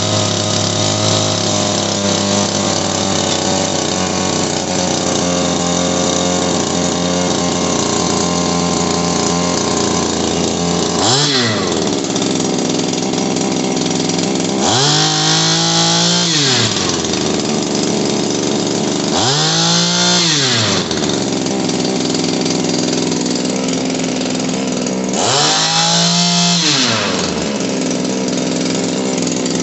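Shindaiwa PB270 power broom's small two-stroke engine running: it idles steadily, then is revved up and back down four times, a short blip followed by three longer revs. It runs and takes throttle cleanly on its new primer bulb and fuel lines.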